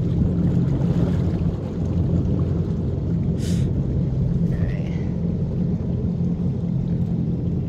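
Boat engine running steadily at idle, a low even hum, with a brief hiss about halfway through.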